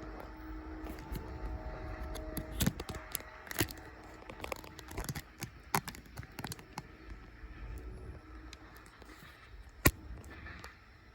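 Freight train rolling past: a low rumble with irregular sharp clacks of wheels over the rail, the loudest about ten seconds in, and faint steady tones in the first three seconds.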